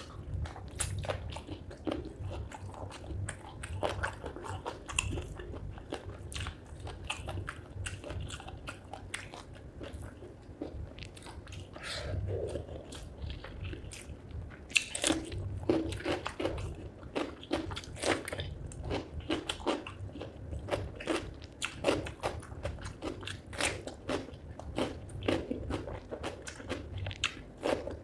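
Close-miked eating of chicken feet curry with rice: continuous chewing and biting, with many short crunches and mouth clicks in quick succession.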